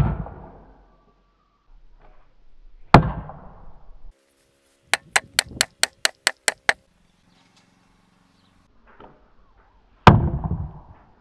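A wooden round shield being struck. A loud arrow hit thuds into it at the start and another about three seconds in, then comes a fast run of about nine sharp knocks from a hatchet on the planks, and a last loud hit near the end.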